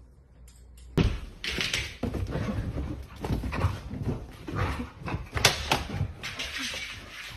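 Sounds of a dog: a run of short, irregular, noisy sounds that start abruptly about a second in.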